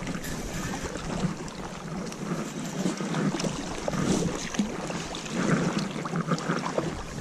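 River water running and lapping at the bank, with wind on the microphone and scattered small clicks and knocks of handling.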